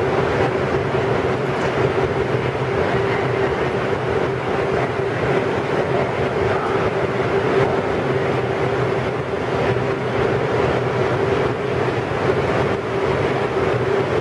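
Bombardier R142 subway train standing at the platform, its onboard equipment humming steadily with a constant mid-pitched tone over a rumbling noise.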